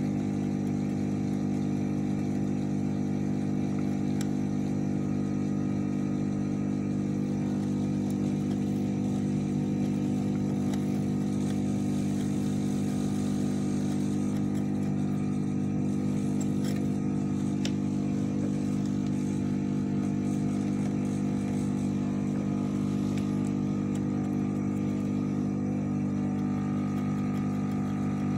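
Steady low hum of running workbench equipment, unchanging throughout, with a few faint clicks of small tools.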